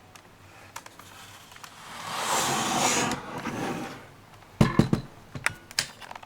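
Hands working a laptop's keyboard release. There is a swell of rushing noise lasting about two seconds, then a cluster of sharp clicks and knocks about four and a half seconds in and a few more near the end.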